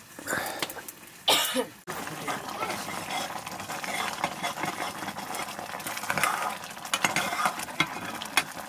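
Metal spoon stirring mushroom curry in a blackened pot, clinking and scraping against the pot in a steady run of small knocks. About a second and a half in comes a short, loud cough.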